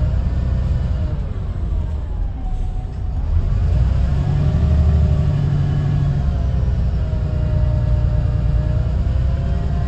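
Heard from inside a VDL SB200 Wright Pulsar 2 single-deck bus on the move: a steady low engine and drivetrain rumble. The engine's whine falls in pitch over the first few seconds, then rises again about three seconds in and holds steady, getting louder as it does.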